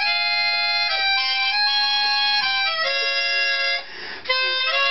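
Harmonica playing a run of held chords, the notes changing every second or so. It breaks off briefly near the end, then carries on.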